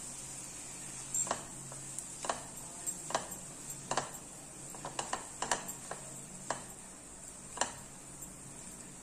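Silicone spatula stirring sautéed vegetables in a nonstick pan: scattered, irregular soft taps and scrapes of the spatula against the pan, over a faint steady high-pitched whine.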